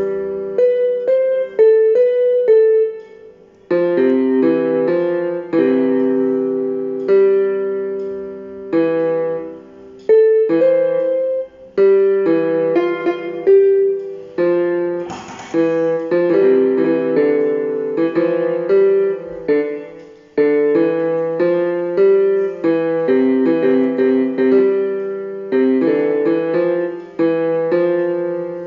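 Solo piano background music, a steady run of single notes and chords.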